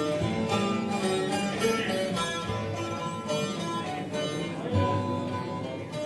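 Instrumental background music with plucked guitar and strings.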